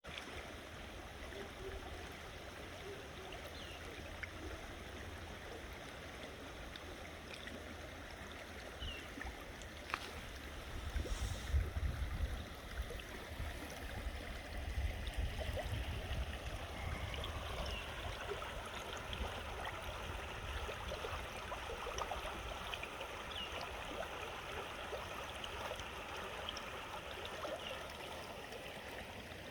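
Rain-swollen creek flowing steadily, with a low rumble that swells about eleven to thirteen seconds in.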